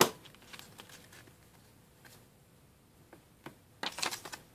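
Paper leaflets and the cardboard phone box being handled: a sharp click at the start, faint ticks, then a short burst of rustling near the end.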